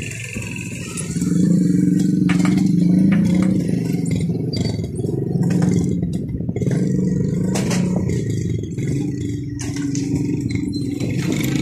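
Passenger train coaches rolling along the track: a low steady drone with scattered sharp wheel clicks.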